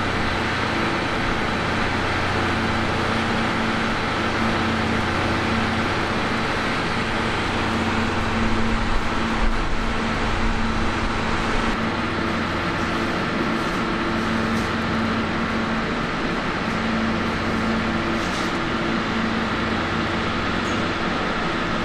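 Steady running hum and rumble of a vehicle, with several constant drone tones over an even noise and no change in level.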